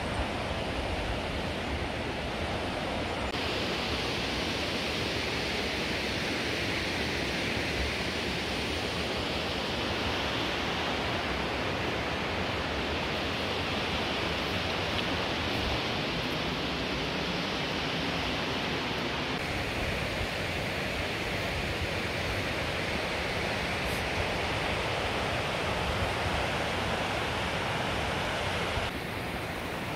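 The River Wharfe in spate, running high and fast over rapids: a steady rush of water.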